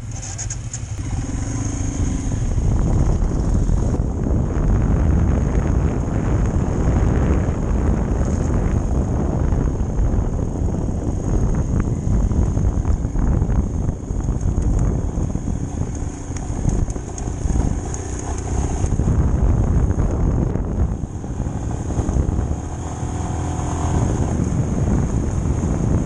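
Royal Enfield motorcycle engine running as it rides up a loose gravel and rock track, picking up over the first couple of seconds, mixed with wind buffeting on a helmet-mounted microphone.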